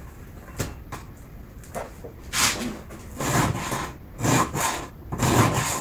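A round file being stroked by hand across the cutters of a chainsaw chain to sharpen it, about one filing stroke a second. The strokes get louder after the first couple of seconds.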